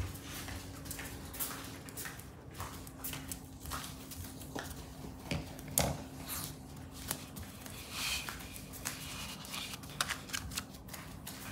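Light, irregular clicks and taps of small dogs' claws on a hard floor and against a plastic case as Maltese dogs walk about and nose at it, over a faint steady hum.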